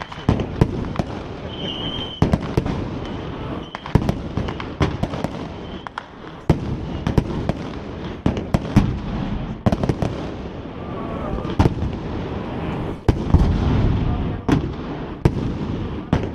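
Fireworks display: aerial shells going off in a rapid, irregular string of bangs and crackles, with a low rumble between the reports.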